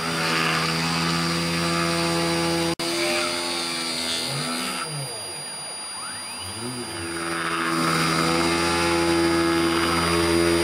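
DC spindle motor on a DIY CNC machine, under PWM speed control near 5,000 RPM, running a Dremel 1/8-inch bit as it cuts a pocket in aspen: a steady machine whine made of several even tones. Partway through, the tones weaken and waver up and down, then come back steady and louder near the end.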